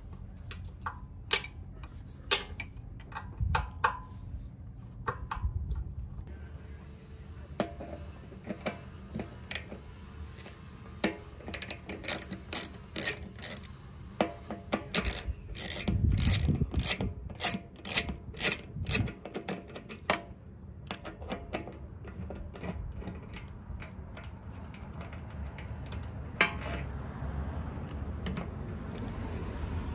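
Metal hand tools, an Allen T-handle and a long hex key, clicking and clinking against the fuel-tank mounting bolts and steel bracket as the bolts are worked loose. The clicks are scattered and sharp, with a quick run of them in the middle.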